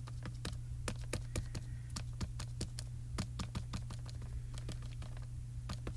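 Small plastic dye ink pad cube tapped repeatedly onto a clear photopolymer stamp to ink it: light, irregular clicking taps, about three or four a second, over a low steady hum.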